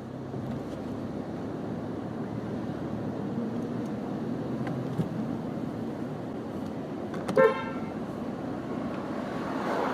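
A car horn gives one short honk about seven seconds in, over steady street and traffic noise.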